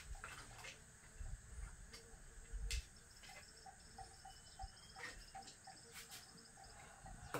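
Faint crickets chirping in a rapid pulsed trill over a steady high insect hiss, with a few light clicks and knocks, the loudest a little under three seconds in.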